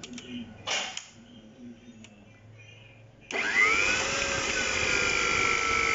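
Electric stand mixer switched on a little past halfway. Its motor spins up quickly, then runs at a steady whine as the wire whisk beats egg whites in the bowl.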